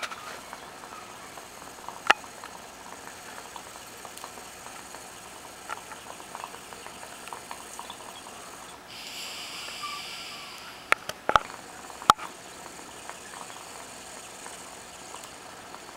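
Water in a glass bong bubbling softly as smoke is drawn through it, with a few sharp clicks of a lighter being struck at the bowl and a brief hiss about halfway through.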